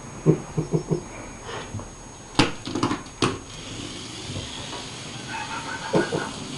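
Quick knocks and sharp clicks, four in a row in the first second and a louder cluster around the middle: a plastic remote control toy mouse being batted and knocked about on the floor by a cat.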